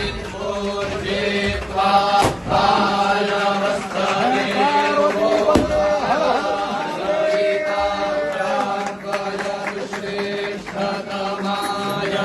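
A group of male voices chanting Vedic Sanskrit mantras together on long, held tones, with two brief knocks about two and five seconds in.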